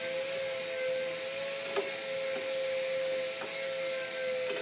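A machine motor runs steadily, giving a constant whine over an even hiss, with a few light clicks and knocks scattered through it.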